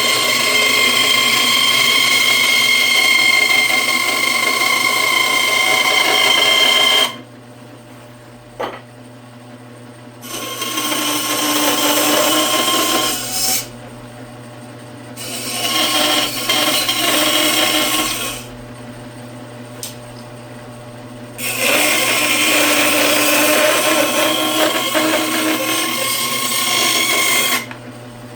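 Small electric power tool cutting wood, switched on and off in bursts: one long run of about seven seconds, then three shorter runs of about three seconds with brief pauses between.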